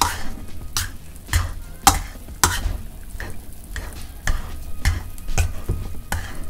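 Wire potato masher pressing boiled green plantains in a stainless steel bowl, with a sharp knock on each stroke, about two a second.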